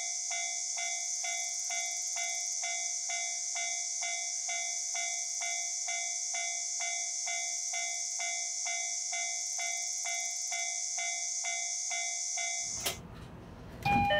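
Railway level-crossing warning bell ringing, an electronic ding repeating about two to three times a second, over a steady high hiss, as a diesel train approaches. Near the end it cuts off suddenly, leaving a low rumble, then a loud knock.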